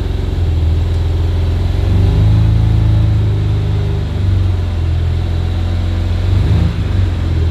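BMW G87 M2's twin-turbo inline-six engine, fitted with an aftermarket exhaust, running at a steady low idle with a slight rise in revs about two seconds in, as the car reverses down off its ramps.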